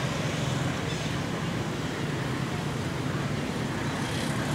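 Steady outdoor background noise with a continuous low drone, no distinct events.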